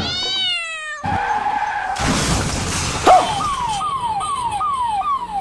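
A cat's meow, then a tyre skid as a scooter swerves, a loud hit about three seconds in, and a run of quick falling whistle-like tones repeating about two to three times a second, like a comic sound effect.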